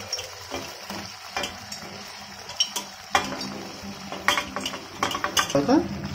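Grilled chicken pieces pushed into a pan of simmering masala gravy. Scattered knocks and scrapes of a wooden spatula, more frequent after about three seconds, over the steady hiss of the bubbling gravy.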